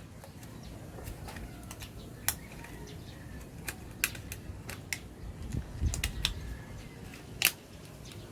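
Irregular sharp clicks and taps of small hardware being handled while a mixing console's power supply board is put back in place, a dozen or so over several seconds, the loudest about seven and a half seconds in, over a steady low hum.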